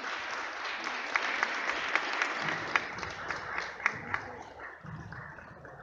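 Small audience applauding, with a few sharp, louder individual claps standing out; the clapping thins out and dies away near the end.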